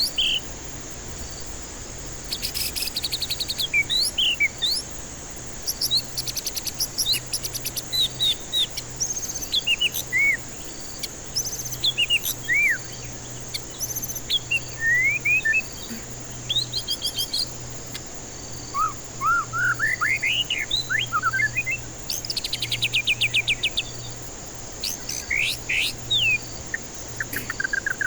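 White-rumped shama (murai batu) singing a varied song of slurred, rising and falling whistles broken by fast rattling trills. A steady high-pitched whine runs underneath.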